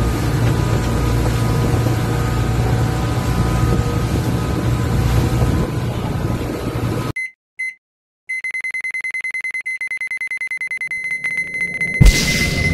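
Motorised outrigger boat under way: a steady engine drone with wind and water rush. After about seven seconds it cuts off into an electronic countdown effect: two short beeps, then a high beep held over rapid even ticking, and a sudden loud hit with a whoosh near the end.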